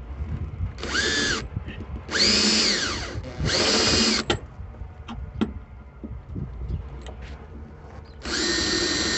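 Makita electric drill fitted with a small bit, run in four short bursts, each whining up to speed and back down, as it is pressed against the truck's B-pillar. The bit is walking on the surface rather than cutting in.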